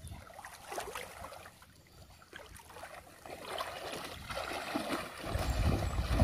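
Shallow water splashing and swishing as a person wades through it, getting louder toward the end, with a low rumble coming in about five seconds in.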